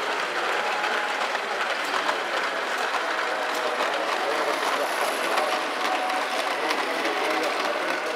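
Model trains running along a layout's track: a steady whir with many small rapid clicks of the wheels over the rail joints.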